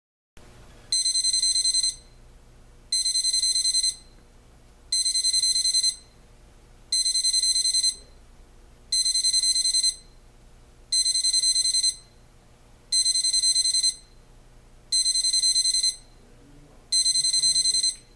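AcuRite 13002 electric digital alarm clock sounding its loud alarm: bursts of high electronic beeping about a second long, repeating every two seconds.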